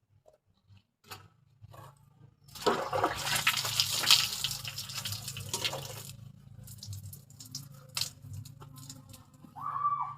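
Water poured and splashing for about three and a half seconds, then a few small knocks and drips.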